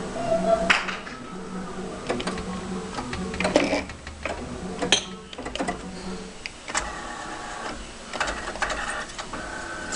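Claw machine in play: its gantry and claw motors whir in short runs, with sharp clicks, over a steady electrical hum.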